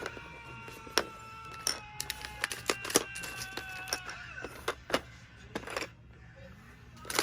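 Small plastic Lego pieces clicking and clattering against each other as they are handled, in irregular sharp knocks, with a faint steady tone of music during the first couple of seconds.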